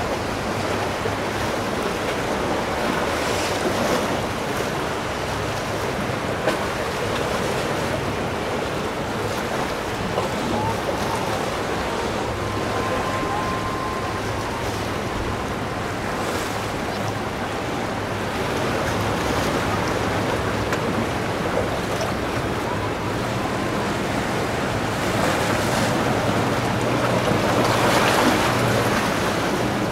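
Waves and surf rushing continuously, with wind buffeting the microphone and the low, steady hum of a boat engine underneath; the water noise swells louder near the end.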